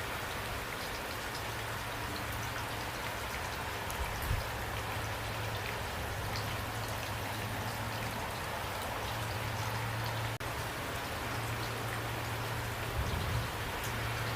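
Steady rain falling, with many individual drops ticking over an even hiss and a low hum underneath. The sound dips out very briefly about ten seconds in.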